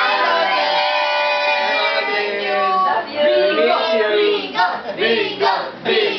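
A group of family voices, adults and children, calling out a long, drawn-out greeting together, many voices held at once. From about three seconds in it breaks up into shorter overlapping shouts and calls.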